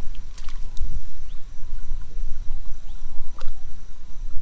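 Water splashing and a few sharp knocks at the side of a small boat as a hooked bass is landed by hand, over a steady low rumble.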